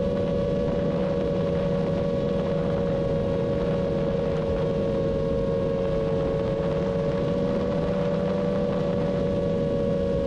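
FPV quadcopter's brushless motors and propellers whining at a steady, slightly wavering pitch over a rushing noise, at constant cruise throttle.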